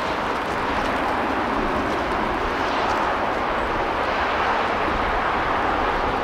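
Three-cylinder A1 Pacific steam locomotive 60163 Tornado working hard uphill, its exhaust heard from afar as a steady roar with no distinct beats.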